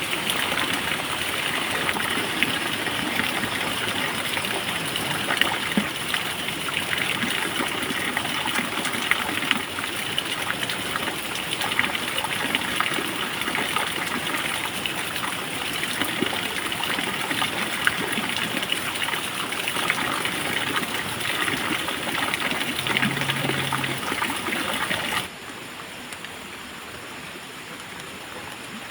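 Steady rush and trickle of running water. About three-quarters of the way through it drops abruptly to a quieter level.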